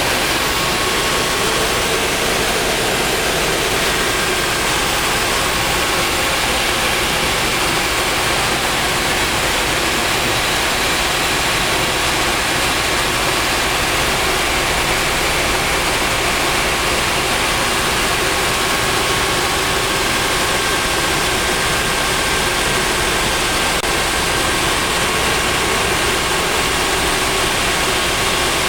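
Eurocopter AS365 Dauphin twin-turbine helicopter in flight, heard from inside the cockpit: a steady, loud rush of turbine engines, rotor and airflow, with faint steady whining tones running through it.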